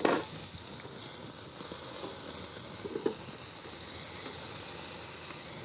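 Pieces of venison saddle searing in a hot frying pan, a steady sizzle.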